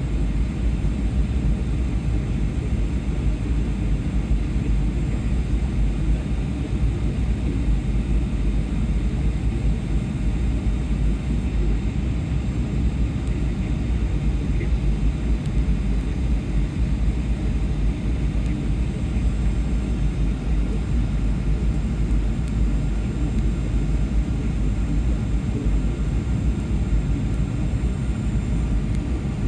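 Cabin noise of a Boeing 737-800 on final approach, heard from inside the cabin: a steady low rumble of its turbofan engines and the airflow, with faint steady high-pitched tones above it.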